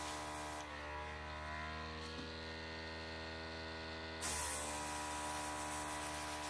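Airbrush compressor running with a steady hum while the airbrush sprays thinned shoe polish: the hiss of air stops about half a second in, and a louder burst of spray hiss starts again a little after four seconds.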